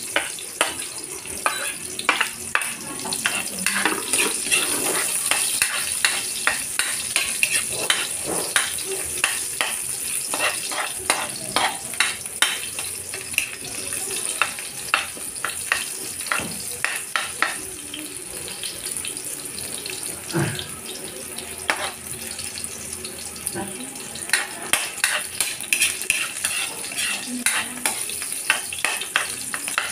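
Chopped garlic and onion sizzling as they fry in a wok, while a metal spoon stirs them, clinking and scraping against the pan a few times a second.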